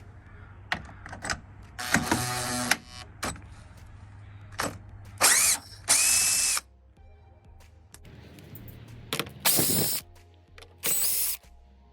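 Cordless power ratchet or drill with a socket spinning out bolts in about five short whirring bursts, its motor pitch rising and falling in each, with small clicks and knocks of the socket and bolts in between.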